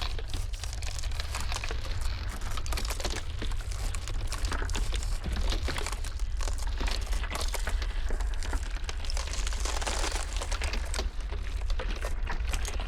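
Ice cracking in a dense run of small crackles and snaps over a steady low rumble of blizzard wind.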